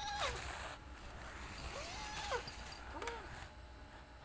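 A white kitten mewing in short wavering cries, about three times, as an older cat pins it down in rough play-fighting, with soft scuffling between the cries.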